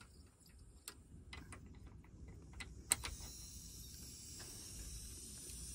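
Small clicks and taps of a bleed key being fitted to a brass manual air vent on a central-heating pipe. About three seconds in, after a sharp click, a faint steady hiss of trapped air escaping as the vent is opened to bleed the refilled heating system.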